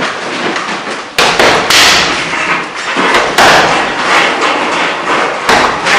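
Sharp thuds and slaps of martial-arts training impacts, ringing in the gym room, over a constant loud noisy background; the strongest hits come about a second in and again past the middle.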